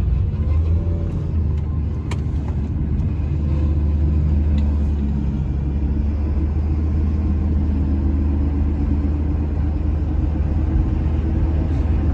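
Car driving, heard from inside the cabin: a steady low engine and road rumble, with a single faint click about two seconds in.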